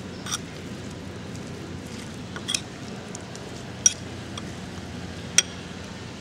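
Metal spoon clinking against a ceramic bowl while stirring a chopped vegetable salad: four short sharp clinks about a second and a half apart, the last two loudest, over a steady background hiss.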